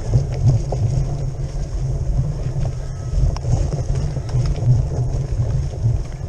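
Wind buffeting the microphone of a handlebar-mounted camera on a bike riding fast down a dirt trail, a steady low rumble with a few faint knocks from the bike over rough ground.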